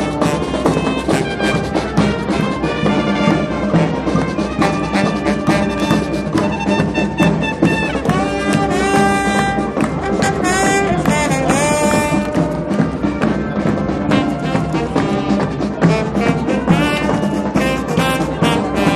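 Brass band music, trumpets and trombones over a steady drum beat, with some sliding notes about ten seconds in.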